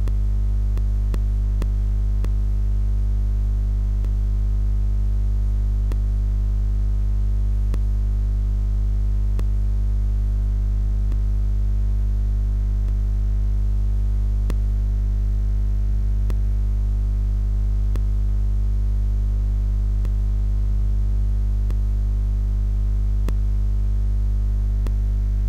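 Steady, loud electrical hum with its overtones, unchanging throughout, with a few faint scattered clicks.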